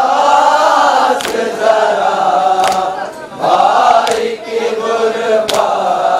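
Men chanting a nauha (Muharram lament) together into a microphone. A sharp slap of chest-beating (matam) lands about every one and a half seconds in time with the chant, four times.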